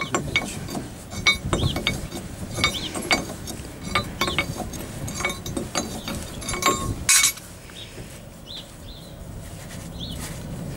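Irregular metal clinks and clanks of a large 55 mm open-end spanner being worked on the steering-cylinder pin nut of a T-150K tractor, steel knocking on steel. The loudest clank comes about seven seconds in, and after it the handling goes quieter.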